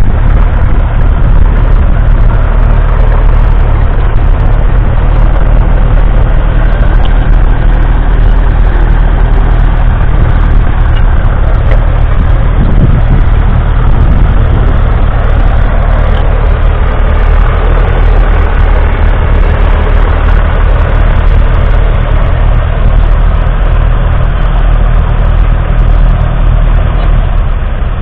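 1957 Massey Ferguson 35's 2.3-litre four-cylinder diesel engine running steadily under load, pulling a two-furrow plough through the soil.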